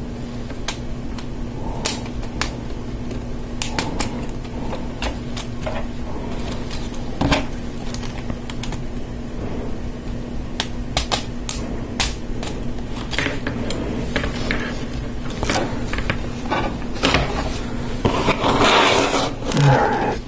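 Plastic LEGO Technic pieces clicking and snapping as pins and beams are pressed together by hand, in irregular single clicks over a steady low hum. Near the end comes a louder stretch of clatter and rustling.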